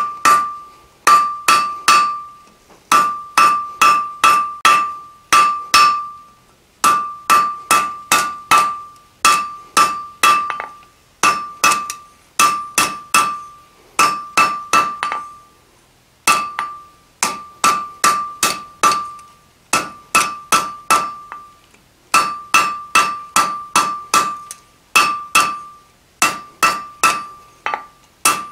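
Hand hammer striking a hot steel bar on an anvil in quick runs of four to six blows, about three a second, with short pauses between runs; each blow rings out with a clear tone from the anvil. The smith is hammering out a taper and smoothing its transition on the bar.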